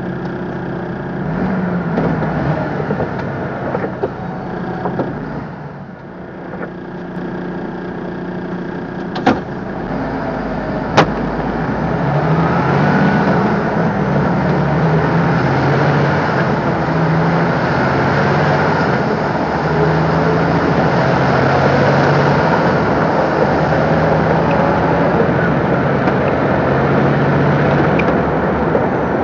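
MAN TGS 26.320 truck's six-cylinder diesel engine, heard from the cab, idling, then pulling away about a third of the way in. As the truck picks up speed, the engine note climbs and drops with each gear change. Two sharp clicks come shortly before it moves off.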